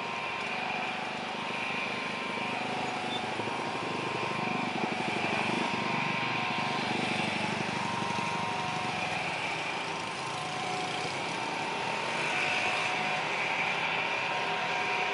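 Airbus A320 twin jet engines running at low thrust as the airliner taxis along the runway toward the listener: a steady jet drone with a faint high whine.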